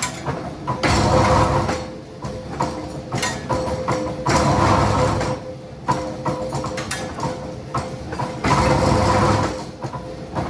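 Factory machinery running with a steady hum, sharp clanks, and a loud noisy surge every few seconds, each lasting about a second.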